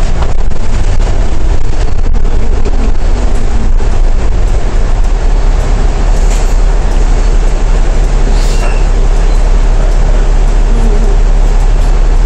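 Cummins ISL8.9 six-cylinder diesel of an Alexander Dennis Trident E500 double-decker bus running, heard from on board as a loud, steady low drone.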